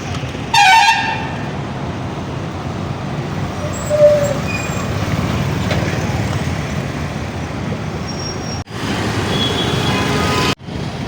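Street traffic running steadily, with a vehicle horn giving one loud short toot about half a second in and fainter tones later. The sound drops out briefly twice near the end.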